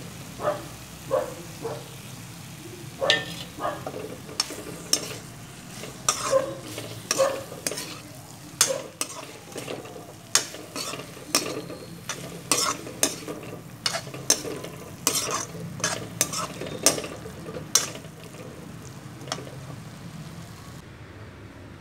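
A slotted metal spatula scraping and tapping against a wok-shaped pan as potato and green capsicum are stirred and tossed, about one or two strokes a second, over a steady sizzle of frying. The strokes stop near the end, leaving only the sizzle.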